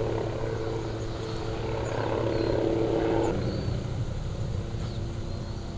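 Kilauea fissure lava fountain roaring: a steady low rumble with humming tones running through it, the tones changing abruptly about three seconds in.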